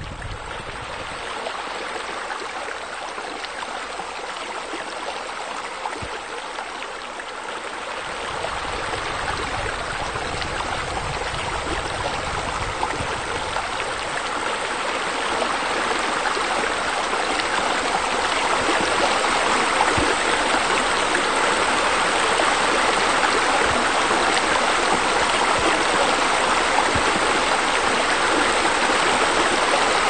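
Steady rushing of running water, like a stream or a pool water feature. It grows louder from about eight seconds in until about halfway through, then holds steady.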